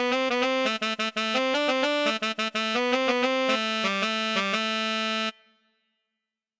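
Sampled cumbia keyboard lead patch playing a melody in two-note harmony, with no pitch bend. It stops abruptly about five seconds in.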